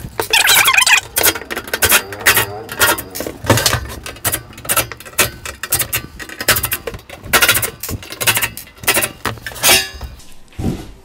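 A cordless driver runs in short spurts, backing out the screws of a welding machine's sheet-metal cover, amid irregular clicks, clinks and rattles of the metal casing being handled and lifted off.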